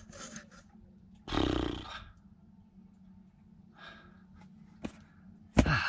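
A man's rough, grunting exhale about a second in, then a shorter grunt with a falling pitch near the end.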